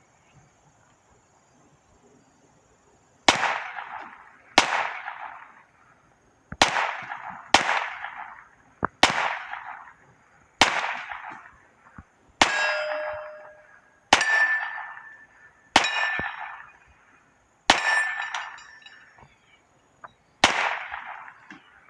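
Auto-Ordnance Thompson submachine gun in .45 ACP fired one shot at a time, about a dozen sharp shots spaced one to two seconds apart, each trailing off in echo. Several shots are followed by a short ringing tone.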